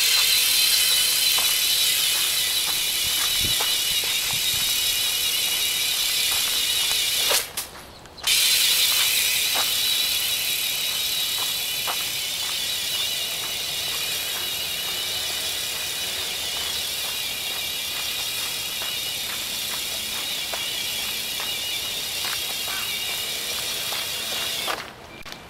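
A multi-winged RC ornithopter's small electric motor and gear drive in flight: a steady high whine that wavers in pitch, with scattered light ticks from the flapping mechanism. It cuts out briefly about eight seconds in.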